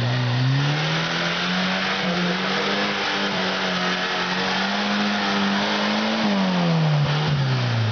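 Suzuki off-road 4x4's engine revving hard and held at high revs while it works up a muddy rut. The revs drop back from about six seconds in.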